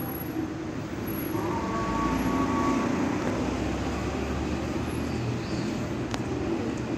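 Steady outdoor city background with a low traffic rumble that swells slightly about two seconds in.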